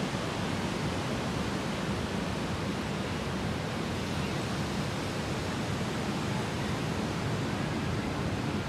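Ocean surf breaking on a sandy beach, a steady, even rush of noise without distinct events.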